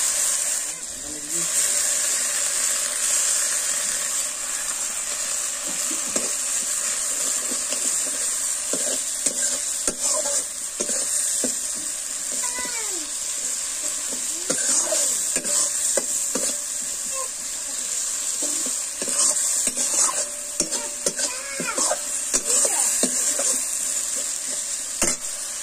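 Spice masala and onions frying in a large metal kadai: a steady sizzle with repeated scraping strokes of a metal spatula stirring the paste as it cooks down.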